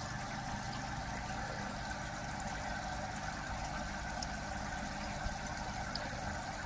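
A steady low mechanical hum from a running machine, even throughout.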